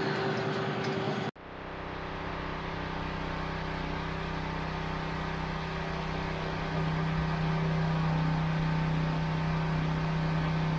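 Pressure washer running steadily while its wand sprays the bottom of a sailboat's hull just hauled out of the water: a constant motor hum under the hiss of the water jet, a little louder from about six seconds in. It follows about a second of quieter outdoor noise that cuts off abruptly.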